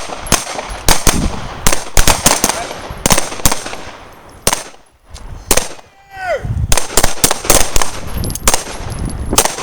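Several semi-automatic handguns firing at once on a firing line: about twenty sharp shots in a ragged, uneven string, some overlapping and some close together.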